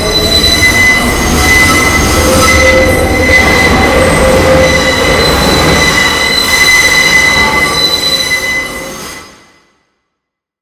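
R142A subway train pulling out of the station, its wheels squealing with a loud, steady high-pitched tone over the rumble of the cars. The sound cuts off abruptly about nine seconds in.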